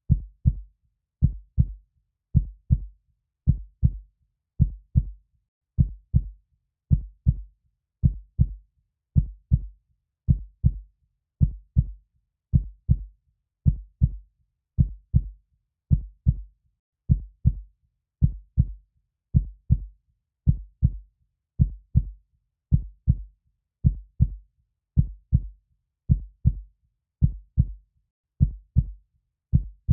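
Heartbeat: a slow, steady lub-dub double thump, deep in pitch, repeating a little under once a second.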